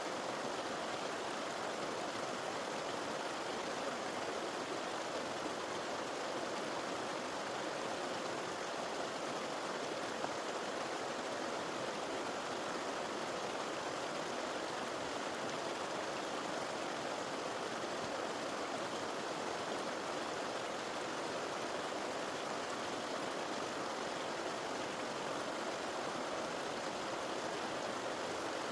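River water flowing, a steady, unbroken rush of moving water.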